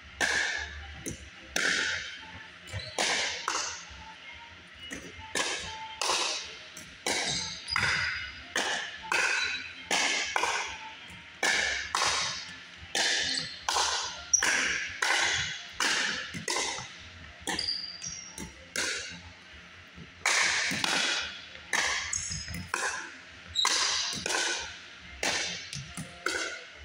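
Pickleball paddles striking the hollow plastic ball in a fast rally, with the ball's bounces, a sharp pop about one or two times a second. Each pop rings briefly in the echo of a gym.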